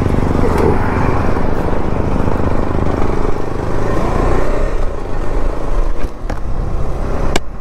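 KTM 390 Adventure's single-cylinder engine running steadily, with a sharp click near the end.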